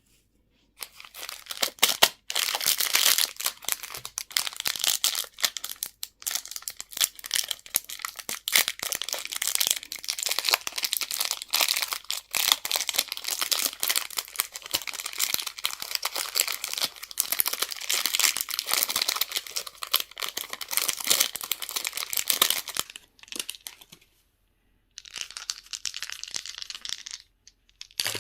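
Candy wrapper being crinkled and torn open by hand: a dense run of crackles lasting about twenty seconds, then a pause and a shorter burst near the end.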